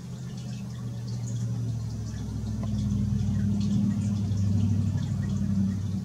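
A low, steady motor drone that builds over about three seconds and eases off near the end, with faint high ticks above it.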